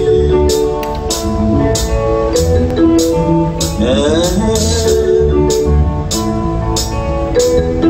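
Music with a steady drum beat and a pulsing bass line, with held melody notes over it and a sliding note about halfway through.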